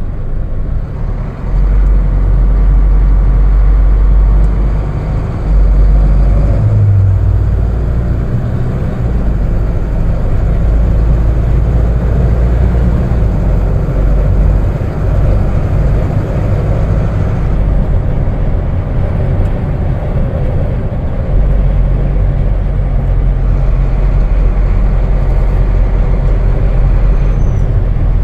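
Inside the cab of a 2019 Hino 155 box truck on the road: a continuous low rumble from its diesel engine and from the tyres on the road, getting louder about a second and a half in as the truck picks up speed from about 20 to 40 mph.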